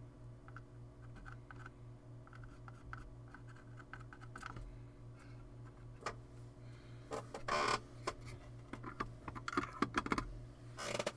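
Light clicks and taps of hands and tools working at a soldering bench, with a few louder knocks and a short rustle about seven seconds in, over a steady low electrical hum.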